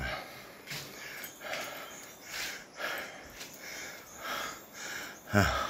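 A man's quick, audible breathing close to the microphone, a short puff about every half second to second, with a brief falling voiced sound near the end.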